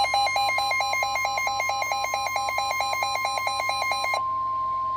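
NOAA Weather Radio warning alarm tone: a steady single tone of about 1 kHz announcing a warning. For the first four seconds an electronic alarm beeps over it, stepping between two pitches about five times a second, then cuts off and leaves the steady tone alone.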